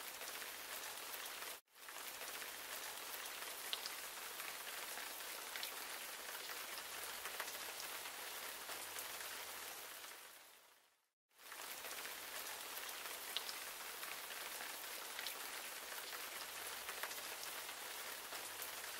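A steady rain-like hiss with a few light ticks scattered through it. It cuts out briefly about a second and a half in, and fades out and back in about eleven seconds in.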